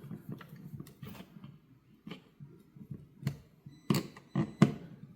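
Hand screwdriver turning the mounting screws of a wall timer switch into its electrical box by hand, giving a string of irregular sharp clicks and small knocks, the loudest near the end.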